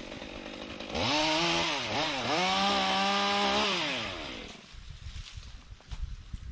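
Chainsaw revving up hard, dipping briefly once, held at high speed for about a second and a half, then winding back down.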